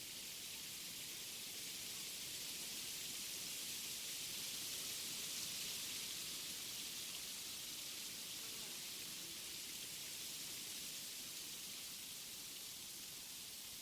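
Wind blowing through forest trees, a steady high rushing hiss that swells slightly in the middle and eases off again.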